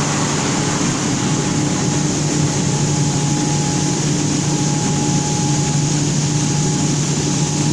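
Grain dryer machinery running steadily: a low, even hum with a thin whine above it and a hiss of air.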